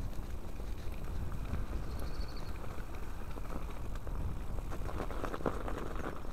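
Riding over a rough woodland track and onto a muddy, snowy field: a steady low rumble, with a run of knocks and rattles about five seconds in.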